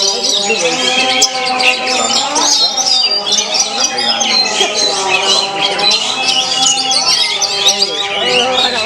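Oriental magpie-robins (kacer) singing loudly in competition, many rapid chirps, trills and whistles overlapping without pause, over a steady layer of lower held voices.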